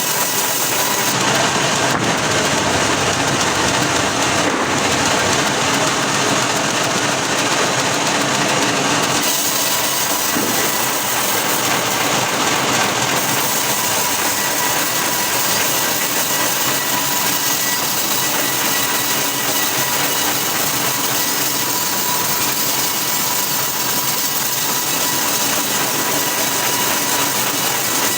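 Band sawmill running steadily with its engine and blade going, the sound shifting about nine seconds in.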